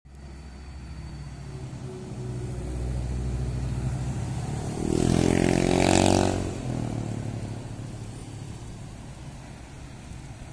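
Road traffic passing: cars and a motorcycle drive by one after another. Their engines build up, the loudest pass comes about halfway through, then it fades away.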